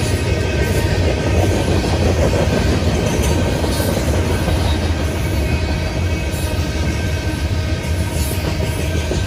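Coal train's hopper cars rolling past at trackside: a steady rumble of steel wheels on the rails.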